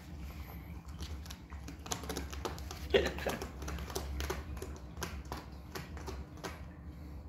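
Kittens playing: their paws and claws make an irregular run of light taps, clicks and scratches on the carpeted scratcher and wooden cat house, with one louder knock about three seconds in. A steady low hum sits underneath.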